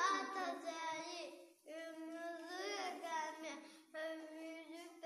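A young child singing a song in three short phrases, with steady held notes and brief breaths between them.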